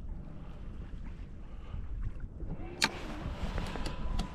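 Low rumble of wind and water around a fishing kayak, with one sharp click a little under three seconds in and a few lighter ticks near the end.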